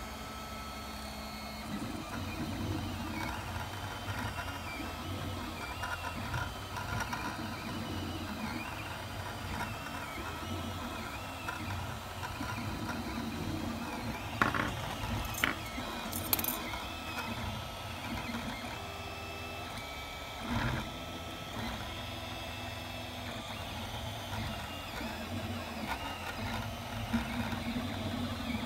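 FDM 3D printer printing in PLA: its stepper motors whir in shifting, rising and falling tones as the print head moves, over a steady hum. A few sharp clicks come about halfway through.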